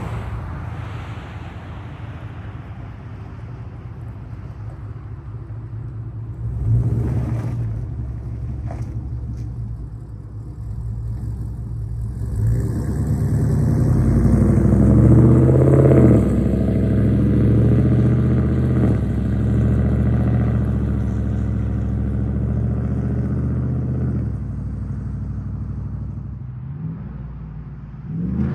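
2011 GMC Sierra's 5.3-litre V8, fitted with long-tube headers, no catalytic converters and a Magnaflow bullet muffler, running under way. There is a brief louder burst about seven seconds in. From about twelve seconds the exhaust swells as the truck pulls harder, holds loud for several seconds, then eases off near the end.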